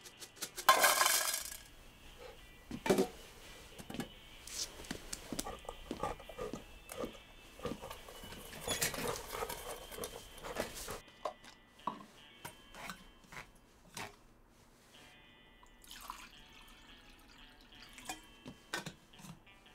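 Dry dog food poured from a metal canister into a stainless steel bowl: a brief rattling rush about a second in. Then a dog eating from the steel bowl, with irregular crunches and clicks against the metal.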